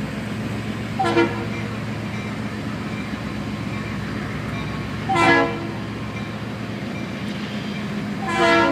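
Locomotive air horn sounding three blasts about four seconds apart, the first short and the next two longer, over a steady low rumble.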